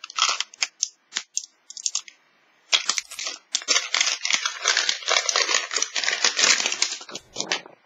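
Thin plastic wrap on a Mini Brands capsule ball crinkling and tearing as it is peeled off by hand. There are scattered crackles at first, then continuous crinkling from about three seconds in.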